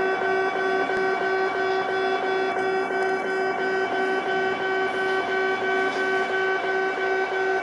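Japanese railway level-crossing alarm ringing steadily in rapid repeated strokes, with the approaching Kintetsu 'Kagirohi' charter train running beneath it.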